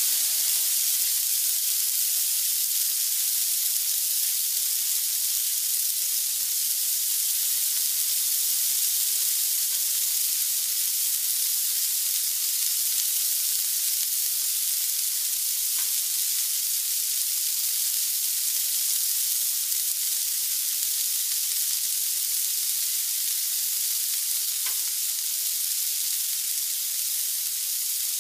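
Taro leaves sizzling steadily in a hot pan as they cook in coconut milk, with a couple of faint clicks midway and near the end.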